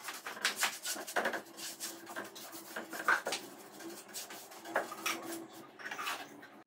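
Paintbrush bristles scratching across a bare wooden cabinet door in short, uneven strokes, brushing on wood stain.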